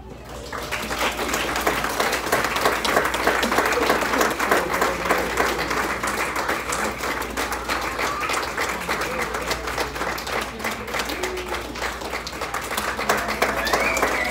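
Audience applause, dense clapping that starts about half a second in and keeps going, with voices calling out over it that grow louder near the end.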